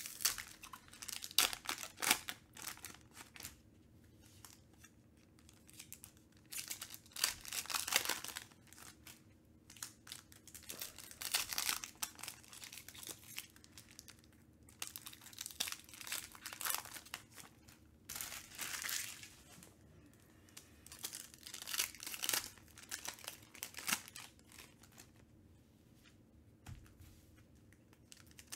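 Foil wrappers of Panini Prizm UFC retail card packs being torn open and crinkled by hand, in clusters of rustling every few seconds with quieter gaps between.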